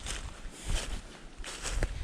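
Footsteps pushing through thick brush and dead leaves in logged-over slash, with irregular crunches and swishes about once a second.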